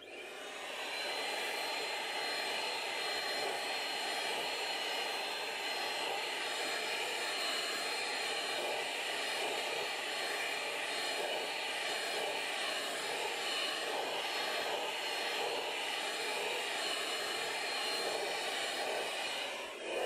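Vacuum cleaner with a brush nozzle running, drawn over a cat's coat to suck up loose fur: it spins up in the first second, runs with a steady high whine, and cuts off just before the end.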